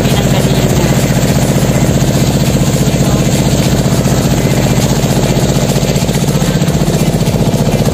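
Small motorboat engine running steadily under way, a rapid, even pulsing drone.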